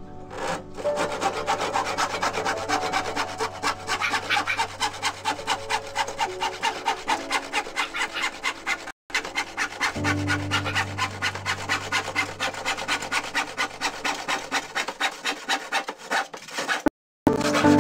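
Handsaw cutting through plywood in quick, even back-and-forth strokes, about four a second. The sound cuts out abruptly twice for a moment.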